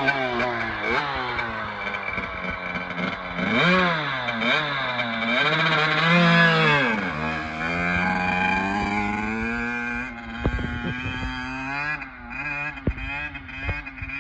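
Kawasaki KX85 two-stroke dirt bike engine revving, its pitch rising and falling several times, then running steadier over the last several seconds, with a few sharp knocks near the end.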